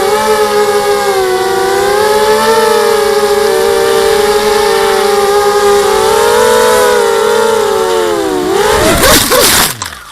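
Brushless motors and propellers of a 250-size FPV racing quadcopter, a loud steady whine whose pitch wavers up and down with the throttle. About eight and a half seconds in the pitch dips and wobbles with a rough clattering noise, then the sound dies away and cuts off.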